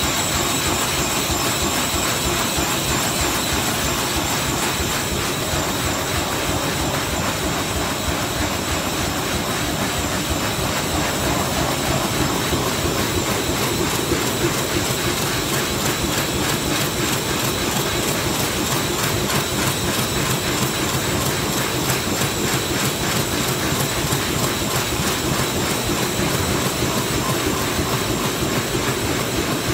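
High-speed cardboard laminating machine running: a steady dense clatter of rapid, regular clicking over continuous machine noise, with a thin high whine.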